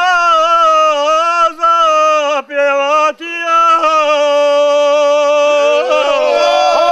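A group of men singing unaccompanied, a lead voice holding long drawn-out notes with short breaths between phrases. About six seconds in, other voices slide in and the singing fills out into several parts.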